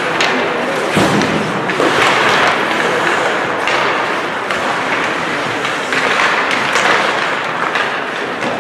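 Ice hockey play in an indoor rink: skates scraping on the ice with knocks of sticks and puck, and a heavy thud about a second in.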